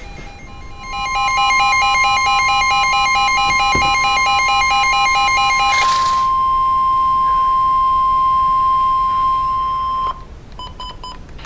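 Emergency alert broadcast tones for a tornado warning: a fast warbling, pulsing alert signal for about five seconds over a steady high beep that holds on alone and cuts off suddenly about ten seconds in. A brief burst of static-like hiss comes near the middle, and faint short beeps follow the cutoff.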